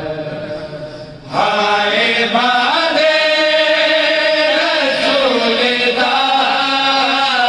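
A male reciter chanting a noha, a Shia lament, into a microphone. One line fades out a little over a second in, then a new line starts loud with long held notes that slide in pitch.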